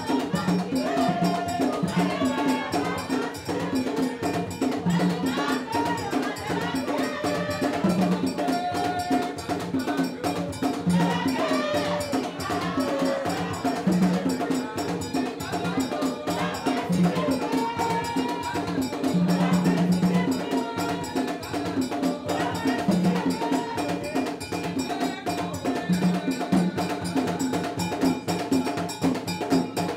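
Vodou ceremony music: a fast, steady metallic bell-like beat and drum strokes under voices singing.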